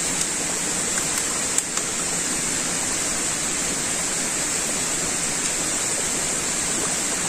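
Steady rush of water running over the rocks of a stream, an even splashing hiss with no let-up.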